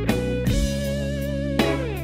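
Instrumental background music: plucked electric guitar notes with some sliding pitches over a drum beat.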